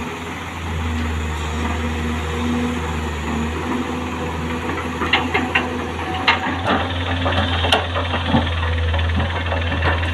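JCB tracked excavator's diesel engine running steadily. From about five seconds in, a rapid series of sharp knocks and clatters as the bucket dumps soil and stones into the steel bed of a dump truck.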